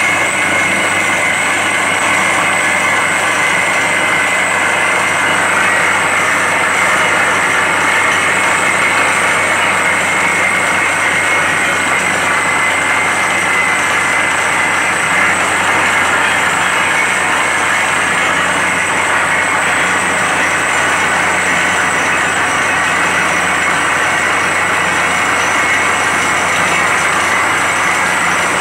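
Truck-mounted borewell drilling rig drilling steadily, with compressed air blowing rock dust out of the bore. A loud, constant machine noise that does not change.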